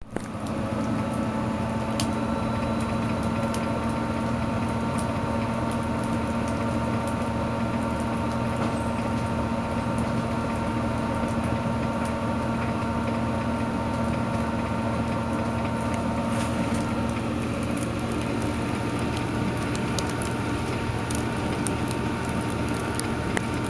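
Wood fire crackling with many sharp pops, over a loud, steady mechanical hum.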